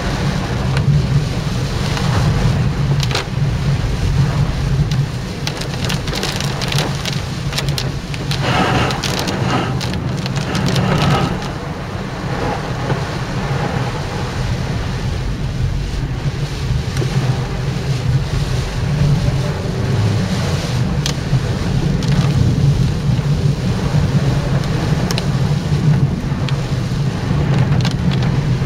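Typhoon rain and wind over a steady low rumble, with scattered sharp clicks and a louder surge about a third of the way through.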